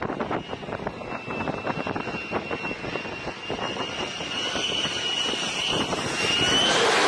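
F-35C fighter jet coming in to land on a carrier deck: a steady high jet-engine whine that grows louder and rises in pitch near the end as the jet closes in. Wind buffets the microphone throughout.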